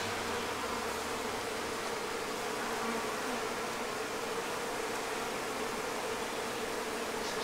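Steady buzzing hum of many honeybees on the open top bars of a hive, holding an even pitch throughout.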